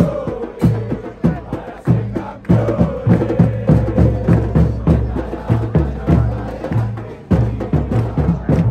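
Large crowd of Argentina football supporters singing a terrace chant in unison, driven by drums beating a quick, steady rhythm.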